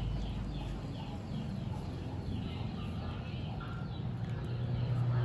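A bird calling repeatedly in short falling chirps, about two a second, dying away about three seconds in, over a low steady background.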